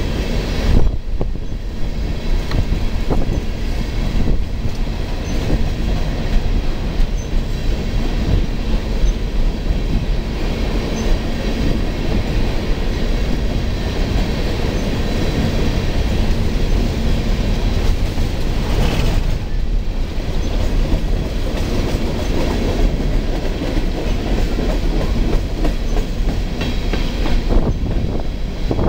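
A long freight train of open-top coal hopper cars rolling past close by: the steady, loud rumble and clatter of steel wheels on the rails.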